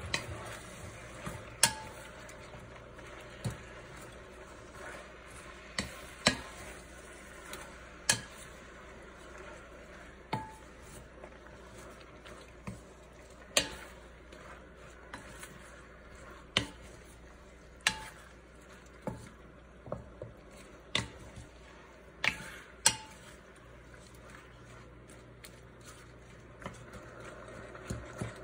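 Wooden spatula stirring a bok choy stir-fry in a stainless steel pan, knocking sharply against the pan every second or two over a faint, steady sizzle.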